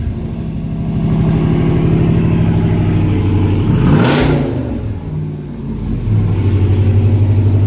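Dodge Ram 2500 truck engine running just after being started off a jump pack: it runs steadily, is revved briefly about four seconds in, then settles into a steady idle near the end.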